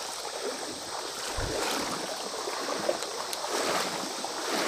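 Wading through a shallow creek: water sloshing and splashing around the legs, swelling with each step about once a second.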